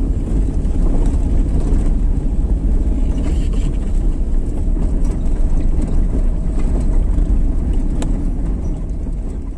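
Loud, steady rumble of a moving vehicle, with wind buffeting the microphone.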